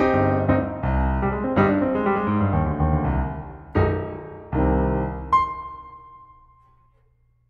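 Background piano music: chords struck about once a second, ending on a last high note about five seconds in that rings and fades away.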